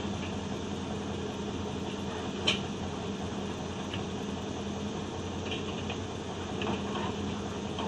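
Heavy machinery engine running steadily, with one sharp knock about two and a half seconds in and a few fainter metal clanks later on.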